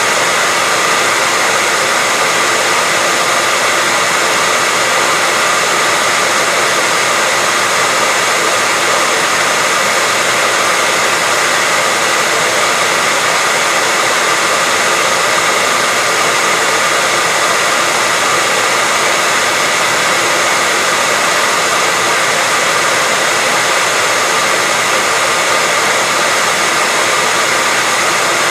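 Hair dryer running steadily: an even, unbroken rush of air with a faint steady whine, used as white noise for putting a baby to sleep.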